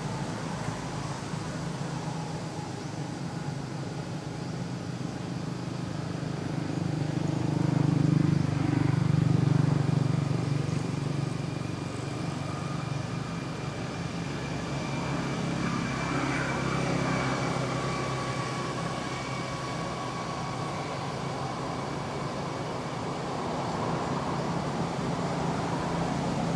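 Road traffic: a steady low engine drone that swells louder about eight to ten seconds in, and again more mildly around sixteen seconds, as vehicles pass.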